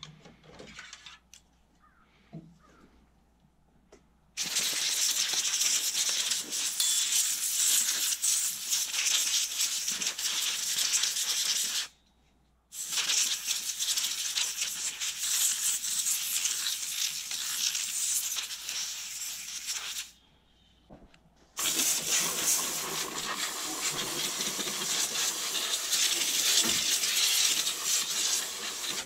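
Can of compressed air blown in three long blasts of hiss, each about seven to eight seconds, with two short breaks between them, blowing dust out of a CPU heatsink and fan. A few light handling clicks come first.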